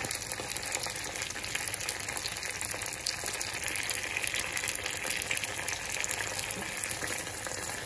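Hot sesame oil sizzling with a steady, dense crackle in a small steel tempering ladle as curry leaves and dried red chillies fry in it: the tadka (thalippu) stage of the dish.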